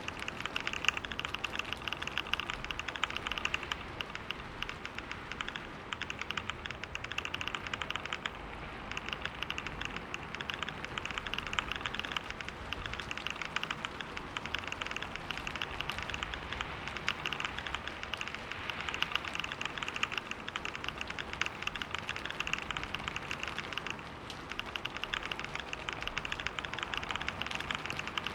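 Fast, continuous typing on a computer keyboard: a dense, unbroken patter of key clicks at a pace of about 125 words per minute. It eases briefly about five seconds in and again near the end.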